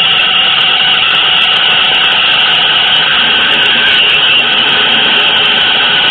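Dense, steady noise drone from an experimental noise-music piece, with no beat or clear pitch.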